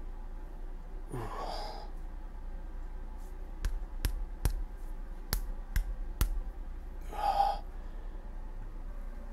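A man breathing out heavily, then about six sharp slaps of a hand on his bare chest over a few seconds, then another heavy breath out.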